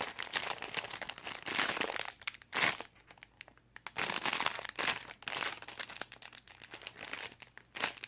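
Plastic packaging bag crinkling as a foam squishy inside it is squeezed, in several spells with short quiet gaps between them.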